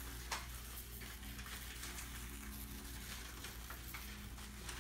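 Iron filings shaken from a small shaker bottle, pattering faintly onto a paper plate as a soft hiss with scattered ticks and one sharper click about a third of a second in. A steady low hum sits underneath.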